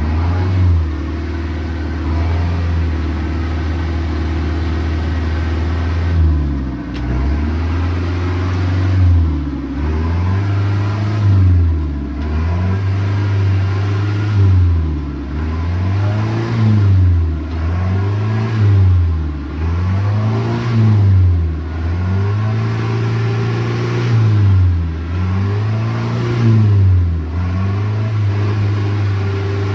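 4WD engine held at high revs for several seconds, then revved up and down about every two seconds as the stuck vehicle is worked back and forth trying to climb out of a hole.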